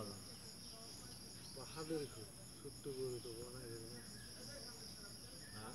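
Steady high-pitched chirring of insects, with brief murmured voices about two and three seconds in.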